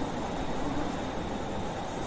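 Blizzard wind blowing as a steady rushing noise, with a faint wavering howl in the first second.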